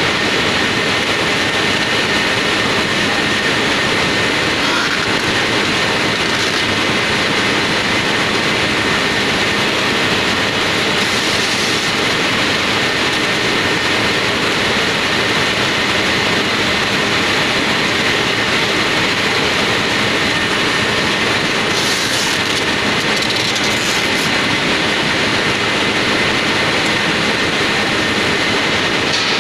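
Industrial production machinery with rollers running steadily: a loud, even mechanical noise with a faint high whine held throughout.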